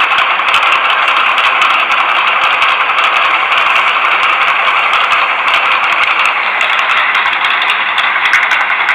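Wobbly ceiling fan running with a steady rushing noise, with a stream of irregular clicks and rattles from its loose, wobbling mount.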